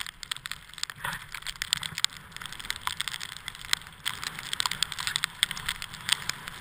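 Skis sliding over snow during a downhill run: a steady crackling hiss dotted with many small clicks, with a low rumble underneath.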